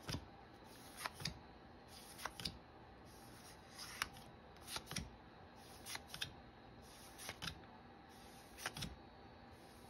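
One Piece Card Game trading cards being slid off a stack one at a time, each card giving a quiet snap, about once a second and often in quick pairs.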